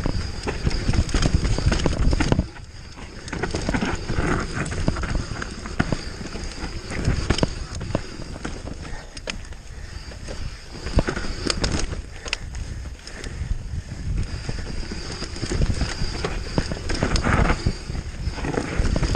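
Mountain bike ridden fast down a dry dirt trail: wind rushing over the camera's microphone and tyres rolling over dirt and roots, with frequent sharp knocks and rattles from the bike hitting bumps. The noise drops briefly about two and a half seconds in, then picks up again.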